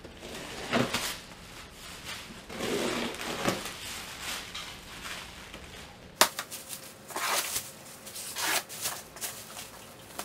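Plastic stretch wrap crinkling and rustling as it is pulled and cut off a cardboard box, in irregular bursts, with a sharp click about six seconds in.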